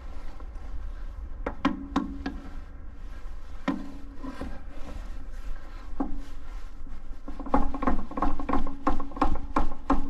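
Metal knocks and clinks of a wrench working on a leaking hydraulic hose fitting on the excavator's hammer line. The knocks are spaced out at first, then come about three a second near the end, over the low hum of the idling engine.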